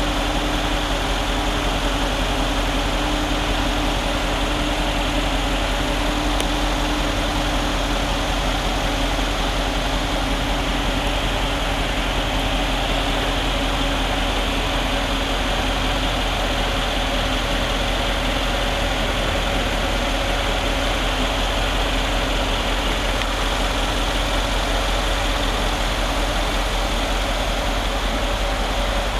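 Brabus-tuned Mercedes-AMG G63's 5.5-litre twin-turbo V8 idling steadily.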